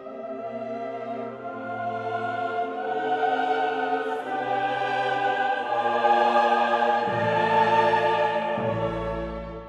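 Orchestral music with a choir, building gradually louder and dropping away near the end.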